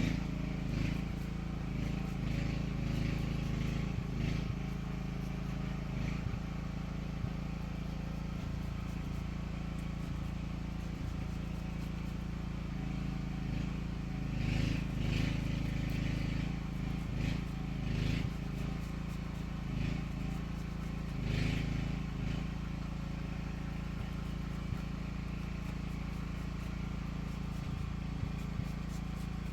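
An engine running steadily with a low hum. It swells and falls unevenly in the first few seconds and again through the middle, with a few short higher-pitched clatters mixed in.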